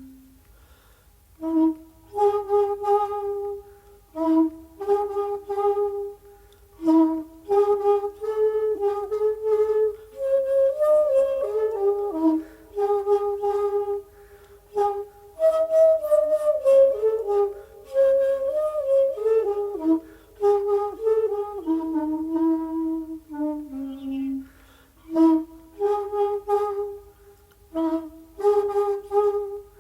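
Solo shakuhachi (Japanese end-blown bamboo flute) playing slow held notes with pitch bends. The notes come in short phrases broken by brief pauses, with a longer run in the middle that climbs to higher notes.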